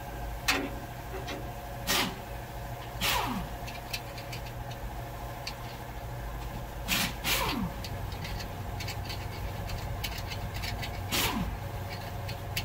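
Rag rubbing and scraping on a cast-iron engine block, a few short strokes spread across several seconds, over a steady mechanical hum.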